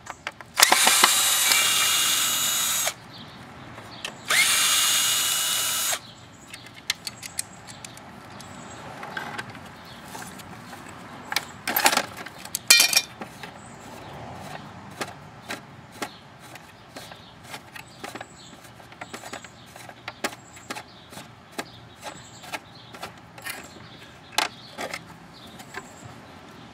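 Power drill running twice in bursts of about two seconds, backing out screws while the snowblower is stripped for scrap. After that come many scattered clicks and knocks, with two sharper knocks about twelve seconds in.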